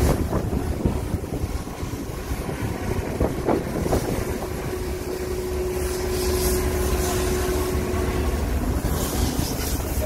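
Low, steady rumble of a ship's engines and machinery, with wind buffeting the microphone and a faint steady hum that comes and goes.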